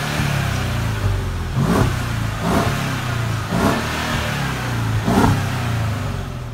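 Mercedes-Benz CLS550's twin-turbo V8 exhaust idling, with the throttle blipped four times; each rev rises and falls quickly, the last the loudest.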